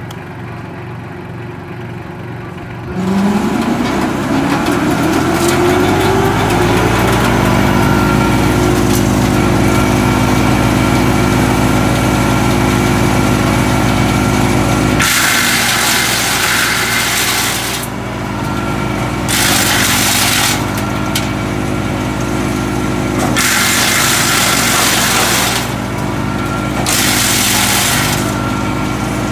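Solis 26 hp compact tractor's engine idling, then about three seconds in it comes up to speed and the PTO-driven drum chipper spins up with a rising whine to a steady run. From about halfway, branches fed into the self-feeding drum are chipped in four spells of loud shredding noise, each a few seconds long, with the steady drone between them.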